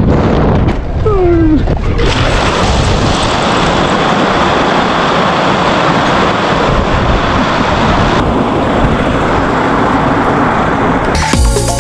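Mountain coaster sled running down its metal rail: a steady rushing of wind on the microphone mixed with the wheels running on the track. Electronic music cuts in near the end.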